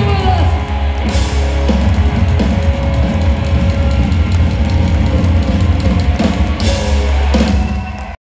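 Loud live ska-punk rock band playing: drum kit, electric bass, electric guitar and keyboard. It cuts off suddenly near the end.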